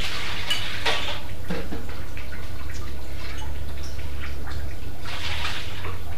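Noodle soup being eaten with spoons from bowls: short wet slurps and the odd spoon tap on a bowl, scattered through, over a steady low hum.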